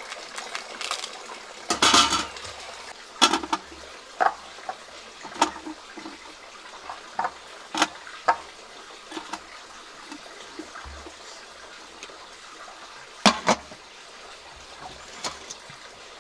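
Knife cutting potato pieces that drop into a stainless-steel steamer basket, giving scattered clinks and knocks over a steady low hiss. Near the end a louder double clank comes as the glass lid goes on the pot.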